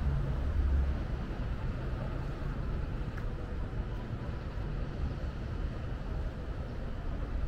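City street traffic ambience: a heavy low rumble in the first second, as of a passing vehicle, eases into a steady hum of traffic.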